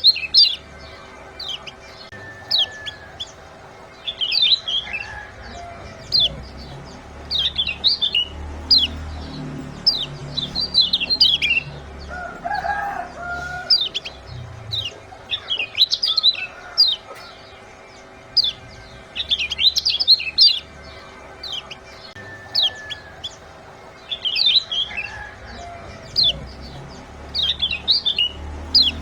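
Lemon-bellied white-eye (kecial kuning) giving bursts of sharp, high 'ciak' chirps every second or two. It is a recorded call track used to set cage birds singing, with a faint steady hum under it.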